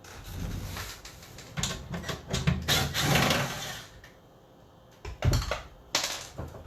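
Parts and tools being handled on a workbench: scattered clicks, knocks and rustling, briefly quieter about four seconds in, then a few sharp clicks.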